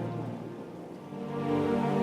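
Soft background music with sustained tones that fade to a lull about a second in and swell back in.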